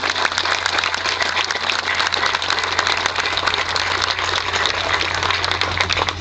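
Large audience applauding, many hands clapping in a dense, steady patter, with a steady low hum underneath.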